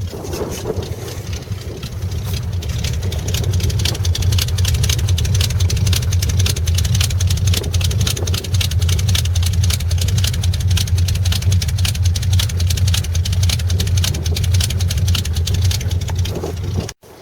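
Cold Chevrolet pickup engine running at a fast, steady idle. It gets louder over the first few seconds, then holds steady.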